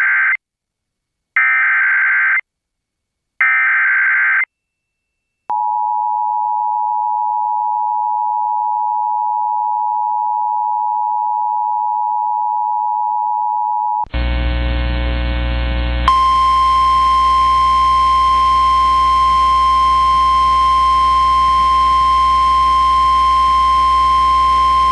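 Emergency Alert System warning tones: the end of one SAME header data burst and two more, each about a second long and buzzy, then the two-tone EAS attention signal held for about eight seconds. After it comes a steady hum, and about two-thirds through, the single 1050 Hz NOAA Weather Radio warning tone sounds over the hum and holds until the end.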